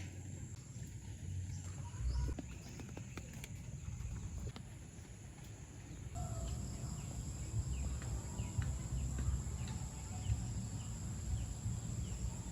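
Outdoor farm ambience: a steady low rumble under a constant high hiss, with faint short bird chirps scattered through the second half.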